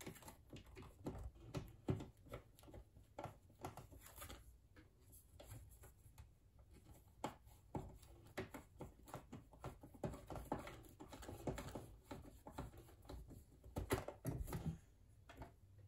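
Phillips screwdriver putting a screw into the bobbin winder bracket of a Brother sewing machine, with faint, irregular clicks and scrapes of the tool and the plastic parts being handled.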